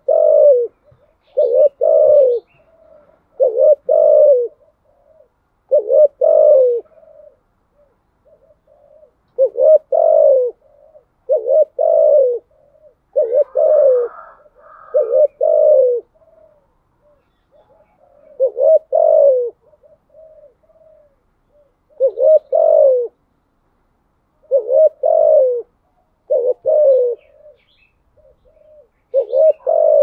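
Spotted dove cooing in the 'thúc gù' pattern: loud, low, mostly two-note coo phrases repeated every one to three seconds, with softer short coos in between.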